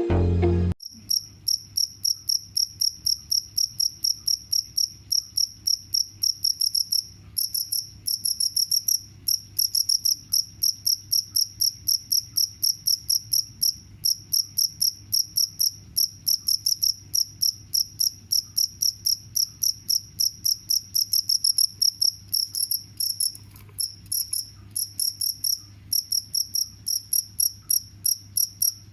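Cricket chirping steadily, about three to four high-pitched chirps a second, with a few short pauses.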